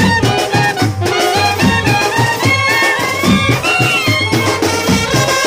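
Background music: a wind-instrument melody with gliding notes over a steady bass beat.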